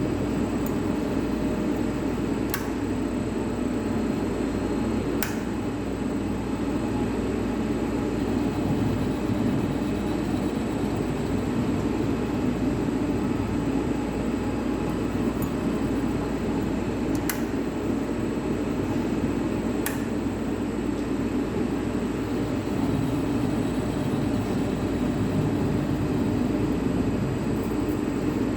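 CNC lathe running with a steady mechanical hum while its tool faces the end of the workpiece in manual mode. A few short sharp clicks sound over it.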